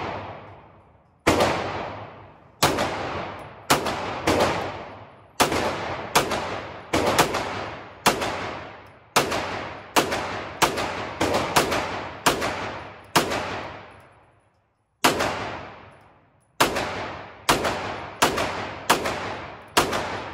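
A gun firing rapid single shots, about two dozen in a steady but uneven string, each shot followed by a long echoing decay. There is a short pause a little past the middle before the firing resumes.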